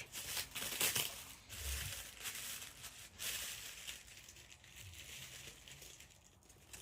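Packaging crinkling and rustling as it is handled, busiest in the first few seconds and then dying down.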